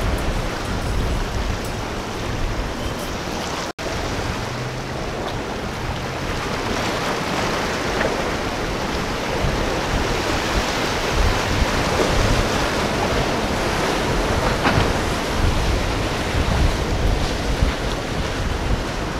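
Breaking surf and wind noise as outboard-powered boats run through a choppy inlet, with a low outboard engine hum under the rushing water in the first few seconds. The sound cuts out for an instant about four seconds in.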